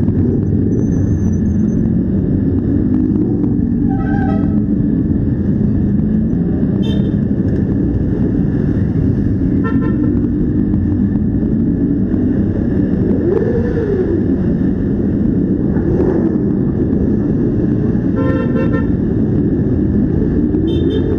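Quad bike engines running at low speed in a slow convoy, with short horn toots several times. An engine revs up and back down briefly about 13 seconds in.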